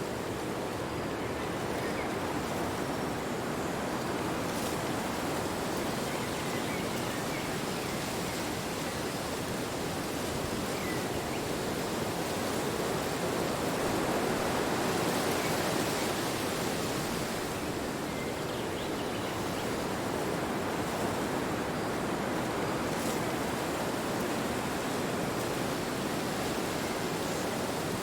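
Steady wind blowing, a continuous rushing that swells a little about halfway through.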